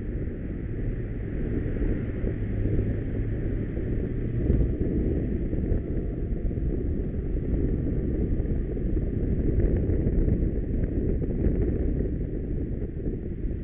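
Riding noise from a camera on a moving motorcycle: a steady low rumble of wind on the microphone mixed with the motorcycle's engine and the surrounding traffic.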